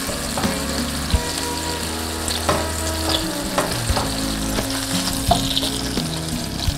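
Tofu-and-beef hamburger patties sizzling in hot oil in a nonstick frying pan. Several light clicks and scrapes come from spatulas against the pan as the patties are pushed and turned.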